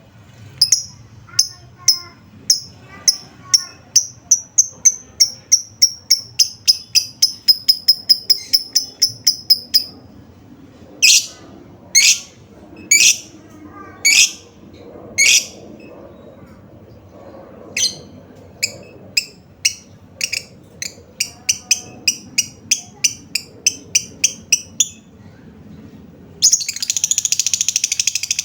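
Lovebird calling: runs of sharp, high chirps that speed up, a few louder separate calls in the middle, then a fast, continuous chattering trill near the end.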